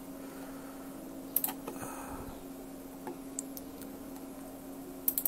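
Quiet room tone with a steady low hum and a few faint, scattered clicks.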